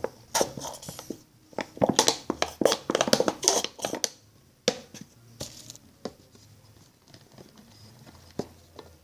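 Crinkling, rustling handling sounds of slime-making materials being worked by hand, busy for about four seconds, then only a few scattered clicks.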